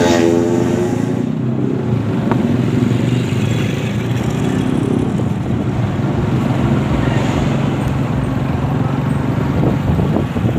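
Street traffic: car and motorcycle engines running steadily, with vehicles passing close by and one engine's pitch sweeping at the start.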